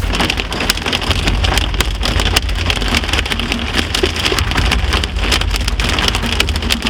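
Hail drumming on a moving car's roof and windshield, a dense, steady patter of hits over the low rumble of the car on the road.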